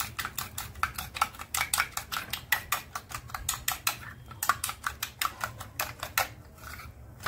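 A utensil beating a raw egg in a bowl: quick clinking strokes against the bowl, several a second, with a brief pause near the end.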